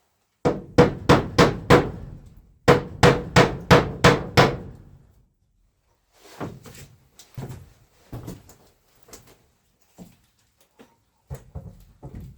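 Hammering: two quick runs of hard blows, five or six strikes each at about three a second, followed by lighter, irregular knocks.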